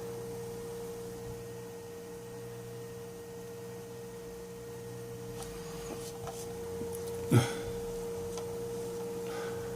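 A steady high electrical whine over a low hum. There are a few faint clicks, and one sharper click or knock about seven seconds in.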